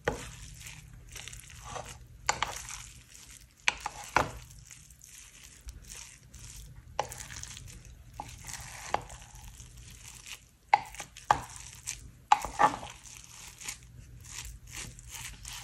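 Wooden spoon stirring and turning cooked sticky rice in a glass baking dish: soft squishing of the rice with irregular clicks and knocks of the spoon against the glass.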